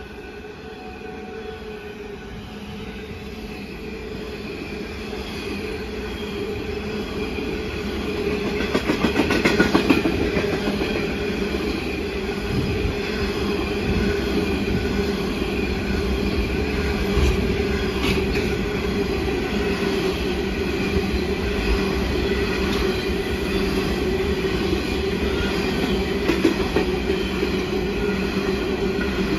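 Grain train hopper wagons rolling past on steel wheels: a continuous rumble that grows louder over the first several seconds. It carries a steady whining tone and scattered clicks and clunks as wheelsets cross rail joints.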